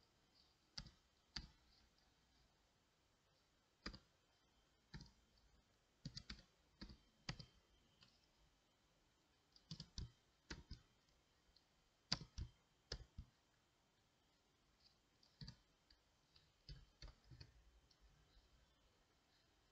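Faint keystrokes on a computer keyboard, tapped irregularly, singly and in short runs, as text is typed.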